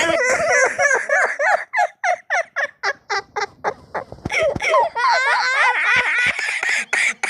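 Boys laughing: a run of quick, pitched ha-ha bursts, about four a second, then a longer stretch of unbroken laughter from about four seconds in.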